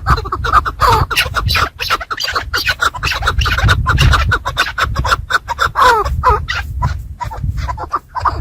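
Chukar partridge calling, a series of short downward-sliding notes, among many sharp clicks and a rustling, scratching clatter.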